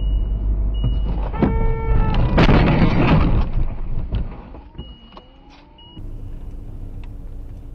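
In-car dash cam sound of a car driving, with steady road and engine rumble and an on-off electronic warning beep. About a second and a half in comes a short pitched tone, then about two and a half seconds in a loud rough crash-like noise lasting about a second as the car runs off the road toward a roadside pole. After that it goes quieter, and near six seconds it changes to a lower engine hum.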